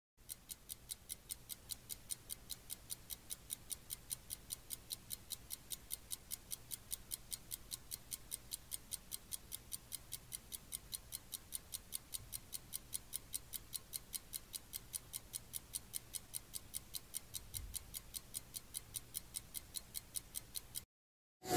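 Steady, even ticking, about four sharp ticks a second, stopping shortly before the end.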